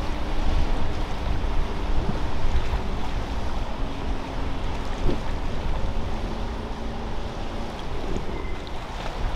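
Motorboat engines running with a steady hum, over the wash of waves and wind buffeting the microphone.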